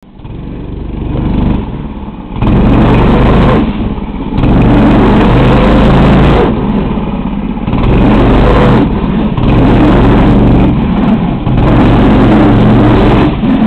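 Swamp buggy engine revving hard in repeated surges, easing off briefly between them, while the buggy pushes through thick brush.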